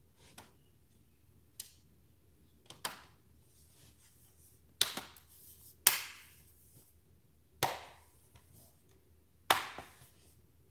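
Sharp plastic snaps and clicks, about seven spaced one to two seconds apart, as the clips of a computer's plastic case are pressed back into place.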